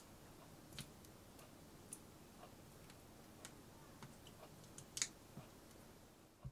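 Faint, irregular clicks and taps of a Polar RC3 GPS watch's rubber strap and buckle being fastened around a wrist, with the loudest pair about five seconds in.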